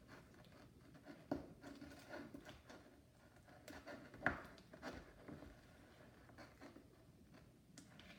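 Faint, irregular scraping and soft sticky clicks of a utensil stirring slime in a bowl.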